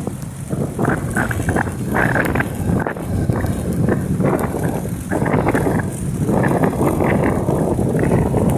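A vehicle travelling on a road in the rain: a noisy rumble of road and wind that swells and fades about once a second.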